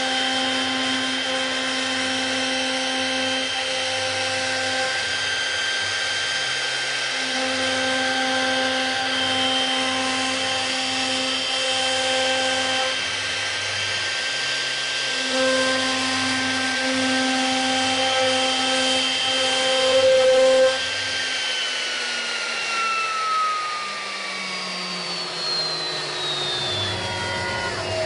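CNC milling-engraving machine running, its motors whining in steady tones that switch on and off and change step by step every few seconds as the machine moves. From about 21 seconds in the tones glide down together as a motor winds down.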